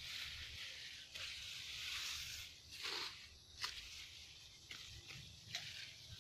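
Grass and leaves rustling with footsteps as someone walks through a grassy field, a hissing swish that swells and fades about once a second, with a couple of sharp clicks.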